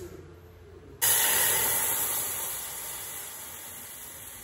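Tteokbokki sauce liquid hitting a hot, dry stainless-steel pot: a sudden loud sizzling hiss about a second in that slowly dies away.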